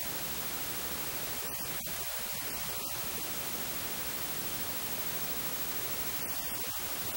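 Steady static hiss, even and unchanging, with no other sound standing out.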